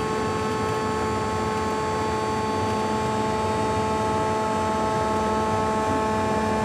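CNC lathe with its Z-axis drive moving the carriage slowly along the bed: a steady electric hum with several steady whining tones.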